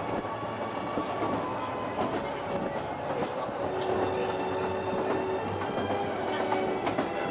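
Passenger train running, heard from inside the carriage: a steady running noise with a faint hum and occasional light clicks from the wheels.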